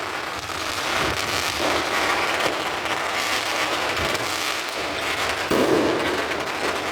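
Fireworks going off continuously: a dense crackle of many small bangs, with a louder burst about five and a half seconds in.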